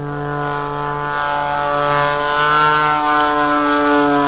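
Single-engine aerobatic propeller plane flying overhead, its engine a steady drone whose pitch rises slightly and falls back as it grows louder through the middle.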